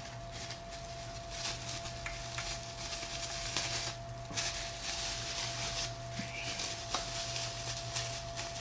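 A stiff plastic bag crinkling and rustling in irregular bursts as a small card reader is worked back into it, over a steady faint hum.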